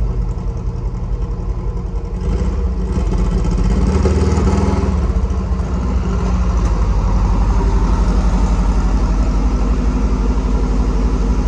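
Sand rail dune buggy's engine running as the buggy rolls up close. It grows louder about four seconds in, then runs steadily at close range.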